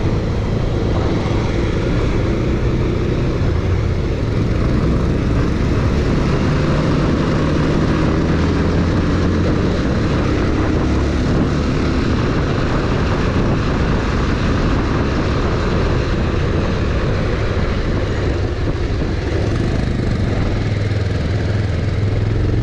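Bajaj Pulsar 220F motorcycle engine running steadily while riding, its pitch drifting slowly up and down, under a constant rush of wind and road noise.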